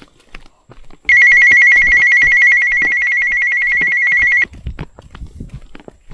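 Handheld two-way radio (walkie-talkie) sounding its call tone: a loud, high, rapidly pulsing ring that starts about a second in and stops abruptly after about three and a half seconds.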